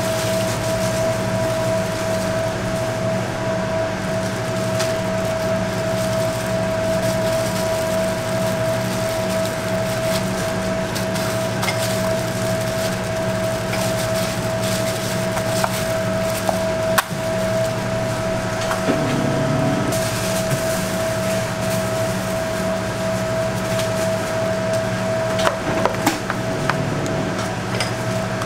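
Steady machine hum holding one constant mid-pitched tone over a low drone, with a few light knocks and clicks about halfway through and again near the end.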